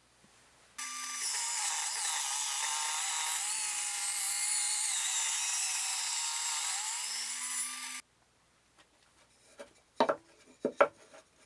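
A power tool running on wood for about seven seconds, starting and stopping abruptly, followed near the end by a few sharp knocks.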